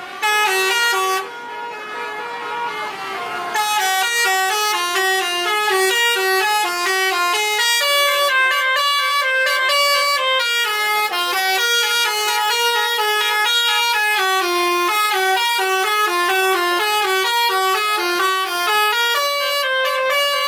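Bus telolet horns playing a long, quick melody of stepped notes. A short blast opens, the horns drop back for a couple of seconds, then the tune runs on without a break.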